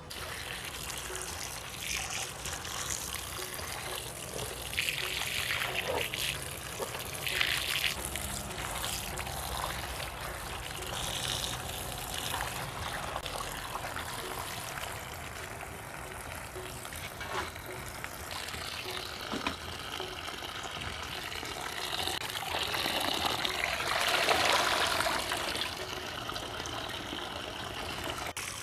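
Water splashing and trickling as lettuce leaves and potatoes are washed, with louder splashes now and then.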